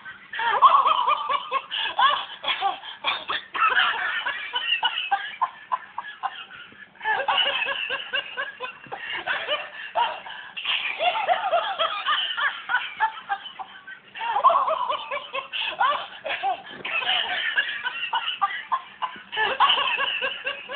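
Motorised plush toy dog laughing out of its speaker as it rolls about, in bouts of about seven seconds with brief breaks between them.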